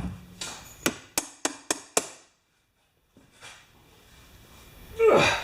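Five quick, sharp knocks about a quarter second apart, from tools or parts striking the compressor under repair, followed by a louder, brief noise near the end.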